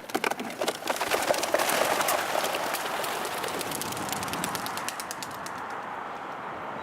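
A flock of young racing pigeons taking off at release. Many sharp wing claps come in the first couple of seconds, then a dense rush of wingbeats that slowly fades as the birds fly off.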